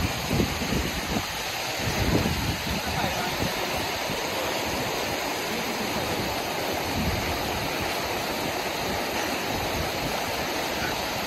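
Steady rushing hiss of a fast-flowing stream, with low wind buffets on the microphone in the first couple of seconds.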